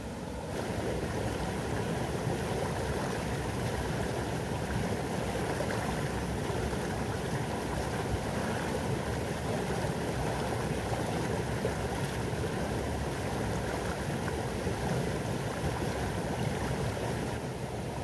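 Steady rush of running water, stepping up about half a second in and dropping back just before the end.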